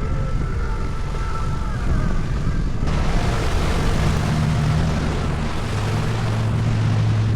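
Wind rushing over the microphone with the steady low hum of vehicle noise while moving along a road; the sound changes abruptly about three seconds in.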